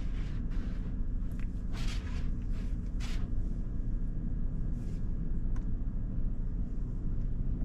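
Automatic car wash heard from inside an SUV's cabin: a steady low rumble with short hissing bursts of water spray hitting the windshield and body, the strongest about two and three seconds in.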